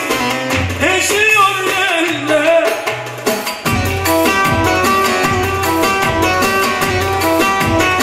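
Live Turkish folk music: a man singing to bağlama and keyboard. The voice stops about three and a half seconds in, and the instruments carry on with a quick plucked melody over a steady bass pulse.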